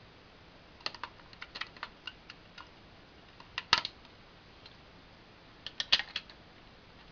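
Scattered sharp clicks and taps of a hard plastic toy craft being handled, with the loudest clicks about four and six seconds in.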